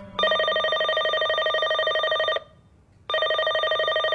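Electronic telephone ringing with a fast warble: one ring of about two seconds, a short pause, then a second ring. The call goes unanswered because the person called is out.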